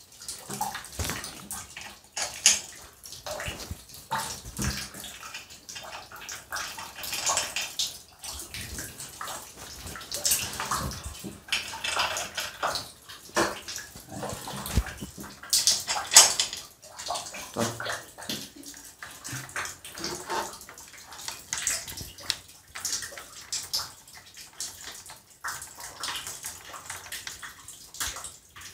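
Water splashing and sloshing in irregular bursts around an electric water heater's tank and the basin beneath it, with occasional sharper knocks of parts being handled.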